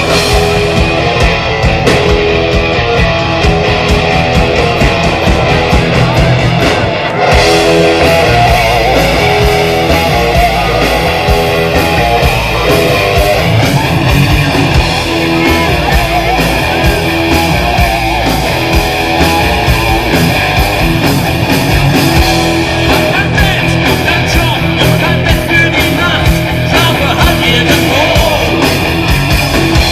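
Loud live heavy metal music with electric guitar, played by a band.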